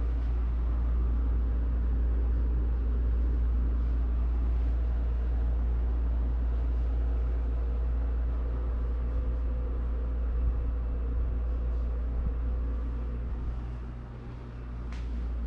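Hotel-room through-wall air-conditioning unit running with a steady low hum, dipping slightly near the end.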